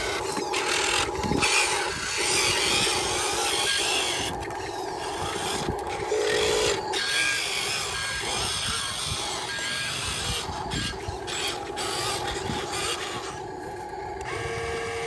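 Huina radio-controlled dump truck driving loaded over dirt: a steady whine from its small electric drive motor and gearbox over a rough hiss. Near the end a different steady hum starts as the tipping bed begins to rise.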